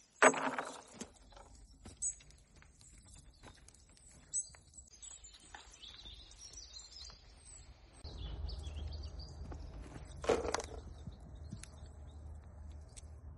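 Olives dropped by hand into a plastic crate with a short loud rattle, followed by scattered small clicks and faint bird chirps. From about eight seconds in a low rumble sets in, with another short knock near ten seconds.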